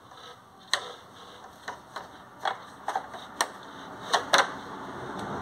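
PVC roller shutter slats clicking and knocking irregularly, about seven sharp clicks, as the broken top slat is pulled sideways out along the shutter, with a sliding scrape building near the end.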